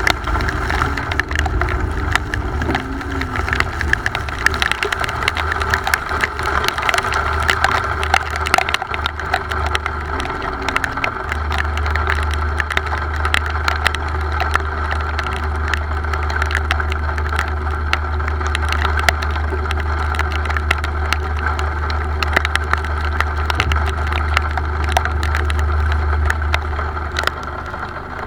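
Rain falling in dense, irregular small ticks over a steady low rumble.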